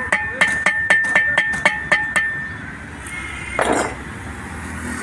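Hammer striking steel at the bearing bore of a truck wheel hub, about ten quick blows at some four a second with a ringing metallic note after each, stopping a little after two seconds in. A short scraping noise follows at about three and a half seconds.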